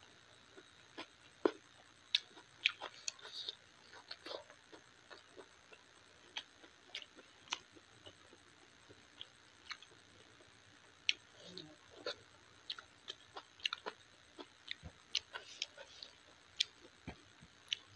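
Close-up eating sounds: irregular wet clicks and smacks from chewing and from fingers mixing rice with dal and mashed potato on a steel plate.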